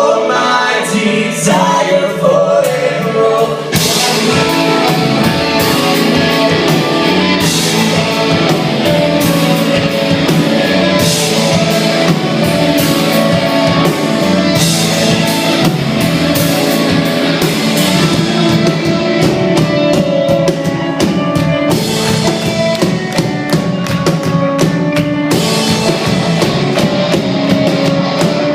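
A band playing a song with singing and a drum kit; the drums come in fully about four seconds in.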